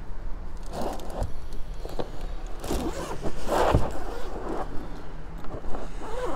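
Handling noise: rustling and a few light knocks as items in a car's storage compartment are moved about, the loudest about three and a half seconds in, over a steady low hum.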